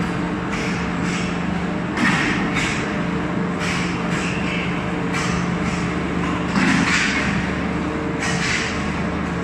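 MS 2000L steel wire shredder running: a steady hum from its electric motor and gearbox, broken by irregular metallic clattering and scraping bursts as bundles of burnt tyre steel wire are torn apart.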